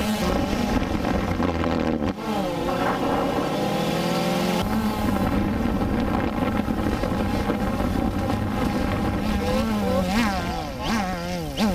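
DJI Phantom 2 quadcopter's four electric motors and propellers buzzing. The pitch jumps abruptly a couple of times, then wavers up and down near the end as the drone manoeuvres.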